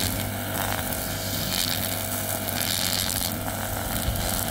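Backpack brush cutter engine running steadily at working speed, its nylon line head cutting grass, with a hiss that swells and fades every second or so.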